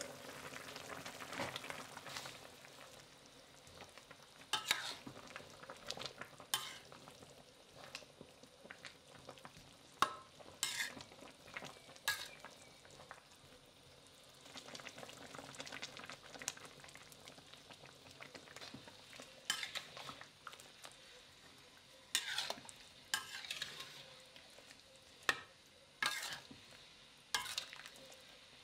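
Metal spatula stirring and scraping eggplant pieces around a metal pan, with sharp scrapes every one to three seconds. Under them runs a faint steady sizzle of the eggplant cooking in spiced oil and liquid.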